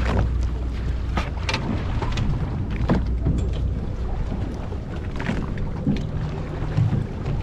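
Wind rumbling on the microphone out on open sea, with scattered sharp clicks and knocks as freshly caught yellow croakers are unhooked and handled on deck.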